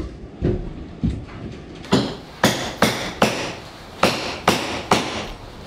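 A hand hammer striking timber or nails repeatedly: about nine sharp blows, a couple spaced out at first, then a quick run of two or three a second from about two seconds in.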